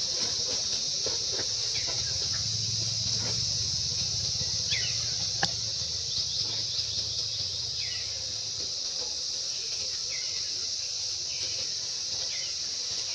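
Steady high-pitched drone of an insect chorus, with a few short falling chirps over it and a sharp click about five seconds in.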